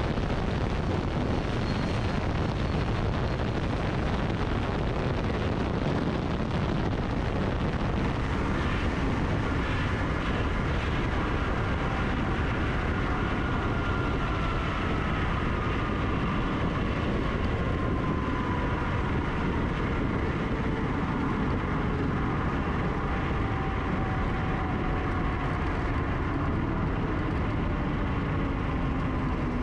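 Cozy Mark IV pusher canard airplane landing and rolling out on the runway: steady engine, propeller and air-rush noise at an outside-mounted camera. From about ten seconds in, a faint tone glides slowly down in pitch as the plane slows.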